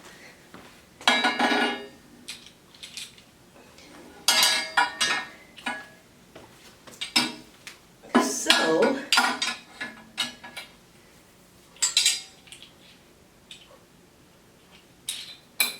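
Metal parts of an electric tiller clinking and rattling in irregular bursts as they are handled and fitted together during assembly.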